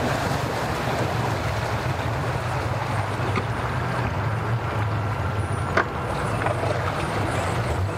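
Yamaha 150 outboard motor running at low speed, a steady low hum, over the wash of water. A single sharp knock about six seconds in.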